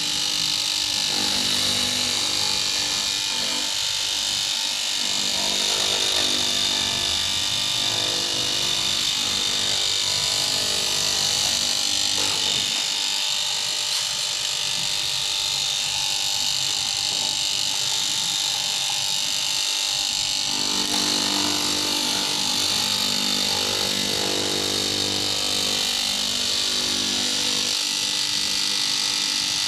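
Electric cloth-cutting machine running steadily with a high whirring hum as it cuts through canvas fabric.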